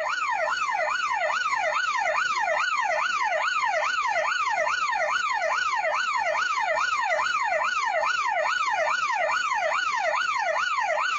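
Electronic yelp siren, its tone sweeping rapidly up and down about two and a half times a second at a steady level.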